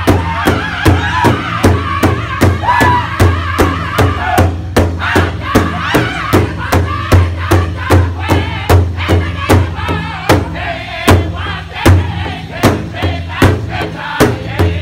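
Powwow drum group singing: several men's high, strained voices in unison over a big hand drum struck together by the group in a steady even beat, nearly three strikes a second.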